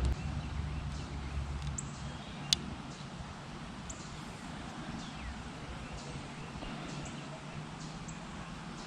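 Quiet pond-side ambience with faint, scattered bird chirps. A low wind rumble on the microphone eases off in the first two seconds, and a single sharp click comes about two and a half seconds in.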